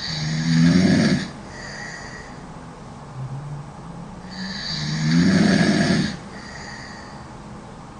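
A woman snoring loud: two long snores about four seconds apart, with quieter breathing sounds between them.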